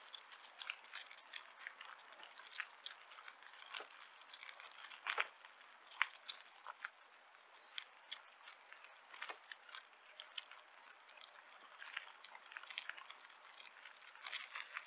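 Bicycle rolling along a trail: irregular crunches and crackles from the tyres on the path surface, with sharper clicks every second or so and no steady rhythm.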